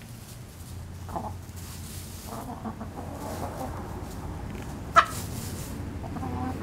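A small flock of hens clucking, with one short, sharp sound about five seconds in that is the loudest moment.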